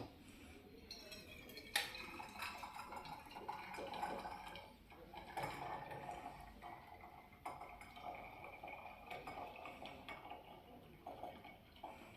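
Freshly brewed tea poured through a small metal tea strainer into glasses. There is a sharp clink just under two seconds in, then a steady trickle of liquid for several seconds, with light clinks of the strainer against the glass.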